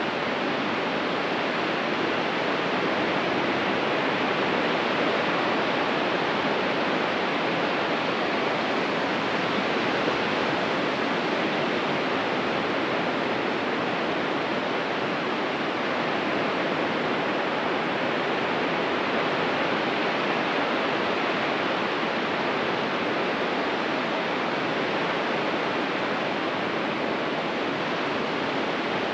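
Ocean surf on a beach: a steady, even rush of breaking waves, with no single wave standing out.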